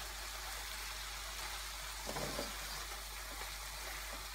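Tomatoes, onion and maitake mushrooms sizzling steadily in a frying pan as they are stirred with a wooden spatula, the tomato juices simmering.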